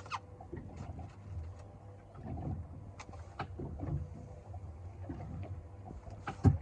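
Scattered knocks and bumps on a small fishing boat over a low rumble, with one sharp, loud thump near the end.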